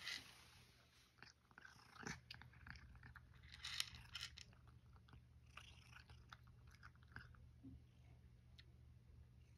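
Faint crunching of a cat chewing dry kibble, in scattered bites, the loudest about two and four seconds in.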